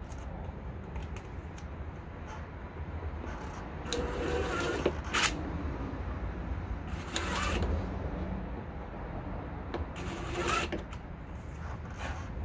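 Power drill running in three short bursts, about a second each, pre-drilling three pilot holes for screws.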